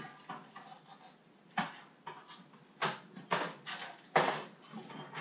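Cardboard boxes and packaged parts being handled: light rustling with a handful of sharp knocks and clicks, most of them in the second half.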